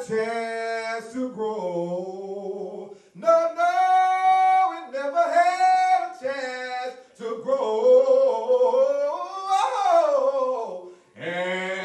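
A man singing solo into a microphone, with no instruments heard: long drawn-out notes that slide between pitches, ending in a falling slide near the end.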